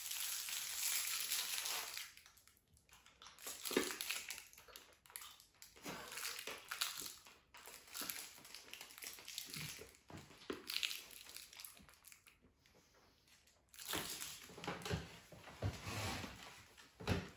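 Sweet wrapper crinkling in the fingers as a small wrapped candy is unwrapped and handled, in irregular bursts with short pauses. Near the end comes the crunching of a hard, chewy fruit sweet being bitten and chewed.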